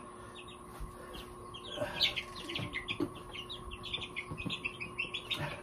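Young chicks peeping, many short high chirps that grow thick after the first couple of seconds, with a few soft knocks.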